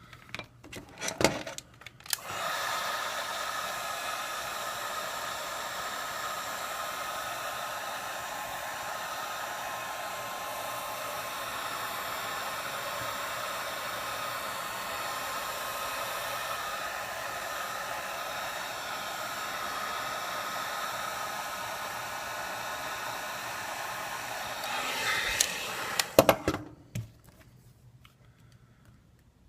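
A handheld hot-air blower runs steadily for about 24 seconds, heating the phone's front glass to soften the adhesive under it. It starts about two seconds in and cuts off near the end, with a few clicks and knocks of handling around the switch-on and switch-off.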